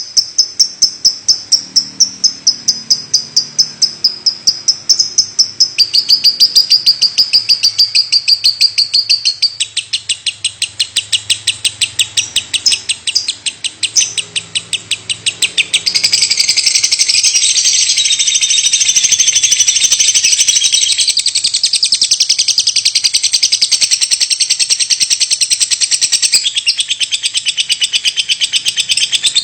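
Lovebird calling in a rapid, unbroken string of sharp high chirps, several a second, which thickens into a denser, louder chatter about halfway through. This nonstop chirping is what the uploader calls 'batuk' (coughing).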